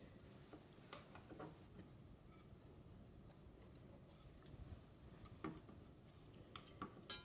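A few faint, sparse ticks and clicks of a thin steel feeler-gauge blade against the edge of a cast iron skillet and the tabletop as it is pushed at the gap under the pan. The sharpest click comes near the end.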